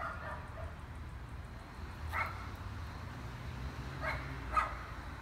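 A dog barking four times: once at the start, once about two seconds in, then twice close together near the end, over a low steady rumble.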